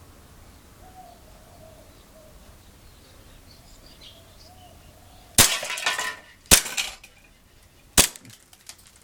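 Three shots from an airsoft Hi-Capa gas blowback pistol, a second and then a second and a half apart. The first shot is followed by a shattering clatter lasting nearly a second as a target breaks.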